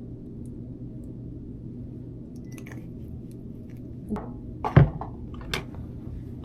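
Steady low hum with three short knocks a little past the middle, the second one much the loudest.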